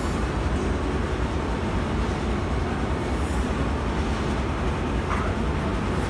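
Steady low rumbling background noise with a hiss above it and no distinct events.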